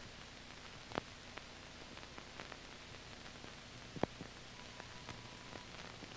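Blank run-out of an old film soundtrack: a faint steady hiss with scattered clicks, two louder ones about a second in and about four seconds in. A faint steady tone comes in at about four and a half seconds.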